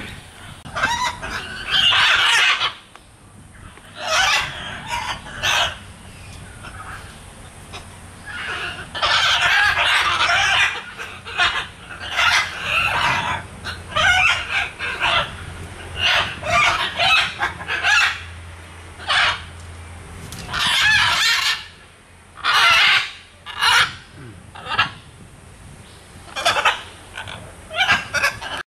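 Parrots squawking: harsh, raucous calls in repeated bursts of a second or two, with short gaps between.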